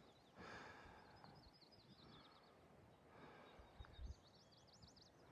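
Faint bird song: two quick runs of high chirping notes, one after the other. A soft low thump comes about four seconds in.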